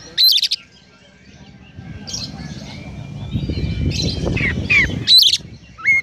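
Oriental magpie-robin singing: loud, sharp chirps at the start, then quieter phrases and a run of downward-sweeping whistled notes near the end, a song filled with mimicked sparrow chirps. A low rumble sits underneath in the middle.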